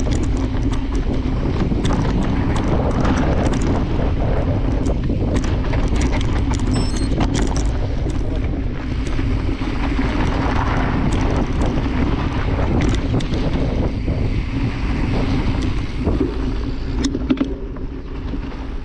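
Wind rushing over the microphone during a fast mountain-bike descent, with frequent rattles and knocks from the bike riding over rough dirt trail.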